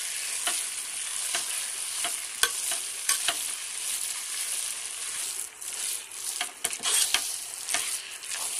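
Metal spoon stirring and scraping thick, sticky gajar halwa with khoya against a hot pan, with frequent short scrapes and taps of the spoon. A steady sizzle of the mixture frying in ghee runs underneath.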